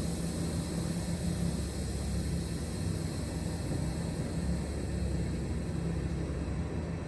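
Semi-truck diesel engine running steadily, a low hum and rumble with a steady hiss over it.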